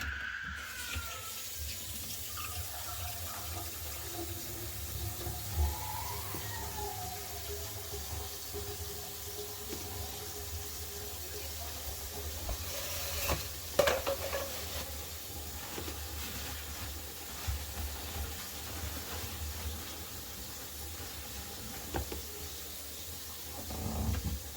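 Water running steadily from a bathroom sink faucet into the basin, with a few sharp knocks about halfway through.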